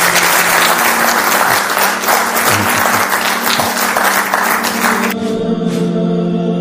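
Crowd applauding over a soft, steady music bed; the clapping stops about five seconds in, leaving the music alone.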